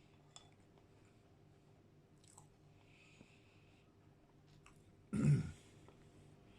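Faint mouth sounds of eating ice cream and biscuits, with small clicks, then a person clears their throat once, loudly and briefly, about five seconds in.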